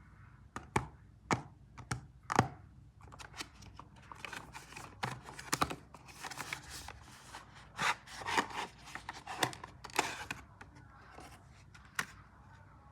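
Ice cream packaging being handled and torn open: a run of sharp clicks and taps, then a stretch of crinkling and tearing, then a few more clicks near the end.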